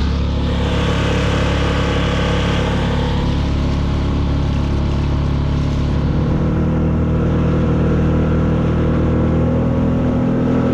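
Small outboard motor pushing a solo skiff along at a steady cruise: an even engine drone with water rushing past the hull. The engine note shifts slightly about six seconds in.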